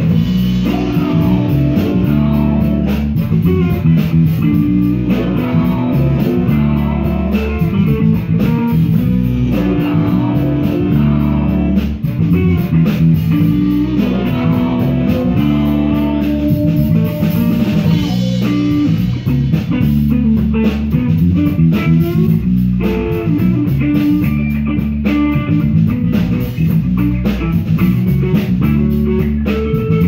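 Live band playing a steady groove: electric guitar, bass and drum kit with a horn section of trumpet, trombone and saxophone.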